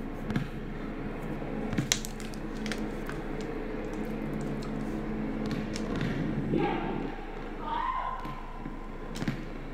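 Basketball dribbled and bouncing on a hardwood gym floor: scattered sharp thumps and knocks, clearest about two seconds in and again near the end, in a hall's echo.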